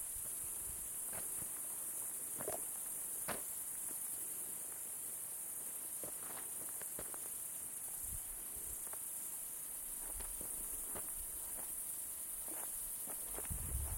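Crickets chirring in a steady high-pitched drone, with faint scattered clicks and a few low thumps, the strongest near the end.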